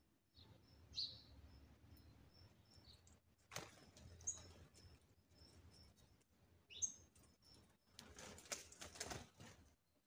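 Faint small-bird chirps: a string of short high peeps in the first few seconds and a few sharper single chirps, with two brief rushes of fluttering wings, one near the middle and one near the end.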